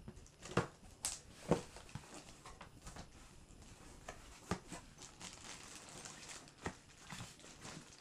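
Cardboard shipping box being opened and handled by hand: flaps pulled open and scraping, with several sharp knocks and taps against the cardboard.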